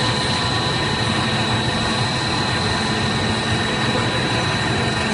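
Wave-sheet snack pellet extruder line running: a steady machine drone from its motors with a constant high-pitched whine over it.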